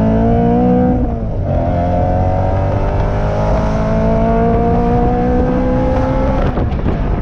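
Supercharged BMW E93 M3's V8 accelerating hard, heard from the open-top cabin. The revs climb, dip briefly about a second in at a gear change, then climb steadily for about five seconds before falling away near the end.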